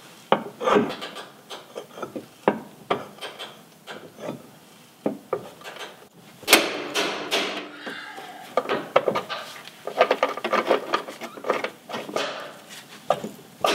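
Socket ratchet with a pipe slipped over its handle working a rusted leaf-spring shackle bolt loose: irregular ratchet clicks, metal knocks and creaking scrapes, thickest about halfway through and again near the end.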